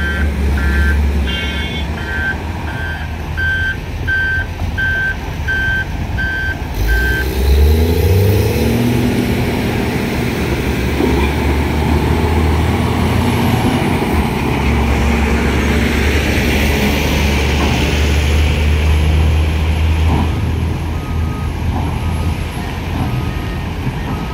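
Heavy diesel engine rumble of dump trucks and excavators, with a reversing alarm beeping about twice a second. The beeping stops about seven seconds in, and a loaded off-road dump truck's engine rises in pitch as it pulls away. Near the end, a second, lower reversing alarm beeps about once a second.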